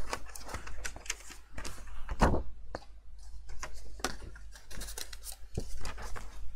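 Sheets of patterned paper and card rustling and tapping as a stack is leafed through and shifted on a cutting mat, with a louder knock about two seconds in.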